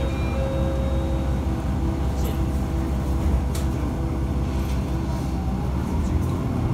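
Inside a Matsuura Railway MR-600 diesel railcar under way: steady engine and running hum with a low drone and a held mid-pitched tone, and a few short clicks.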